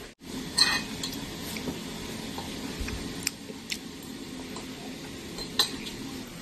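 Spoons and forks clinking against plates as people eat, a handful of short sharp clinks over a low steady hum.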